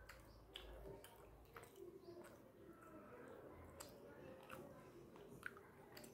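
Faint close-up eating sounds: chewing with soft wet mouth clicks, and fingers squishing and picking through fish curry and rice on a steel plate.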